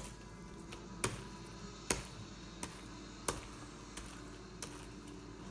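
Sticky homemade glue slime being handled, giving sharp snapping clicks about once a second as it is pulled and pressed.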